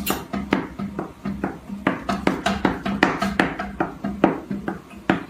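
Background music with quick plucked, percussive notes over a steady pulsing beat.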